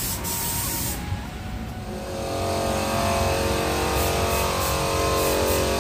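Hose-fed paint spray gun spraying a clay idol, giving short hisses of air. A steady machine drone comes in about two seconds in and grows louder.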